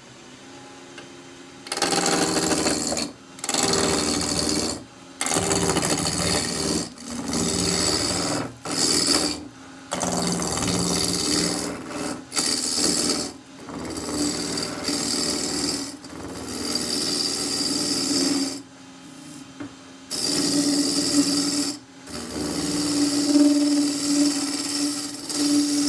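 A 2-inch deep-fluted spindle-roughing gouge cutting a square radiata pine blank spinning on a wood lathe, reducing the square to round. About two seconds in the cutting starts: about ten passes of a second or two each, with short breaks between. Before the first pass only the lathe's quiet running is heard.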